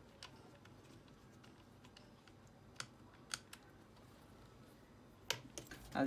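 A few faint, sharp clicks and taps of hands handling small parts inside an opened Alienware m15 R2 laptop after fitting an NVMe SSD, with louder clicks near the end as the thin metal shield plate is picked up.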